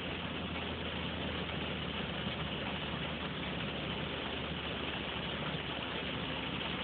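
Steady low hum of an idling vehicle under an even hiss, with no change throughout.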